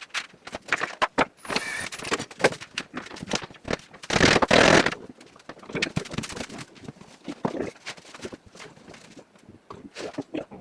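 Carpentry work sounds: a quick jumble of knocks, clicks and scrapes of tools and timber, with one louder noisy rush lasting about a second around four seconds in.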